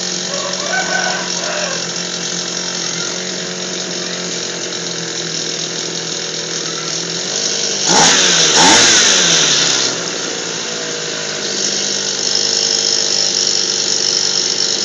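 Small Tasco engine running at idle while its idle speed is set, revved briefly about eight seconds in with the pitch rising and falling, then settling back to a steady run.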